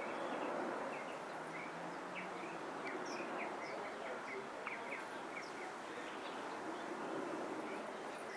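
Small birds chirping in many short, quick calls over a steady outdoor background noise.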